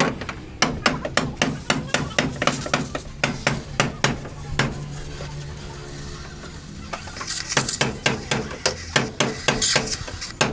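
Rapid metallic knocks on a Maruti Omni van's sheet-metal body, about three or four a second, pausing around five seconds in and starting again near eight seconds, with a short burst of hiss just before they resume.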